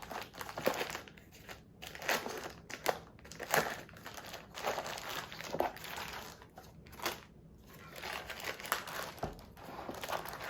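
Packaging crinkling and rustling in irregular handfuls as a boxed keyboard is unwrapped.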